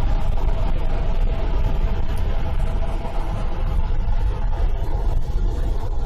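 A 60 V Power Goat e-bike riding at speed: heavy wind rumble on the microphone over a steady electric motor whine.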